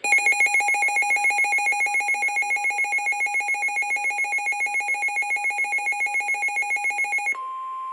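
A weather radio's alert alarm: a loud electronic warble pulsing several times a second. About seven seconds in it cuts off and switches to the steady single-pitch NOAA Weather Radio alert tone, which signals that an emergency warning is about to be broadcast.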